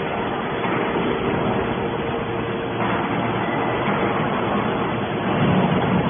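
Hydraulic scrap metal baler running: a steady mechanical drone with a faint constant hum, growing a little louder near the end.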